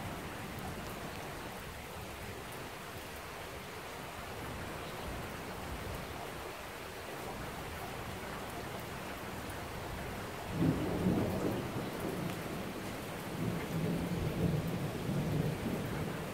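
Steady rain falling on a wet street. About ten seconds in, a low rumble of thunder comes in suddenly and rolls on in two swells.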